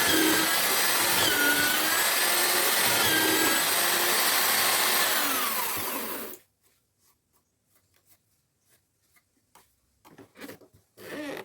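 Homemade drill-powered mortiser cutting into wood: a loud motor whine that dips in pitch and recovers as the bit bites, stopping abruptly about six seconds in. Faint knocks of wood being handled follow.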